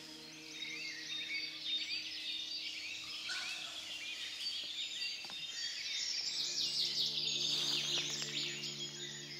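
Dawn chorus of woodland songbirds: many birds singing at once in overlapping chirps and trills, fuller and louder in the second half, over a steady low hum.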